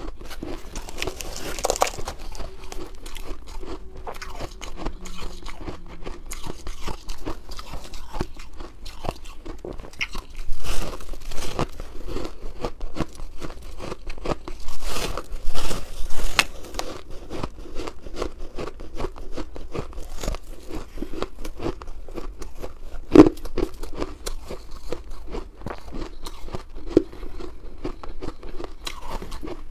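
Packed shaved ice crunching as it is bitten and chewed, a rapid run of crackly crunches. A few bites are louder, and the sharpest single crunch comes about two-thirds of the way in.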